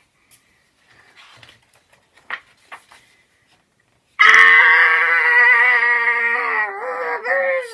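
A girl's voice making one long, drawn-out 'aaarrrgghh' noise at a steady pitch, starting about four seconds in and lasting over three seconds, acting out the sound printed on the picture-book page. Before it there are only a few faint rustles and ticks of the page being turned.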